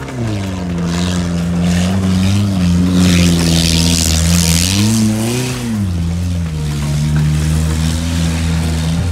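Compact car's engine revving hard as the car is driven over rough dirt, rising in pitch and dropping back about five seconds in. There is a rushing noise for a couple of seconds near the middle.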